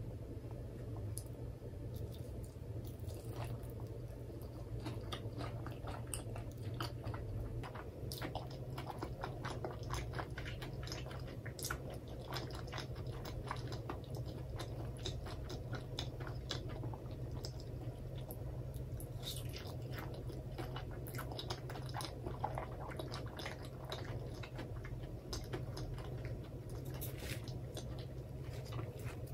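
Close-miked chewing of karaage, Japanese fried chicken dressed with mentaiko mayonnaise, with many small crisp crunches and wet mouth clicks, over a steady low hum.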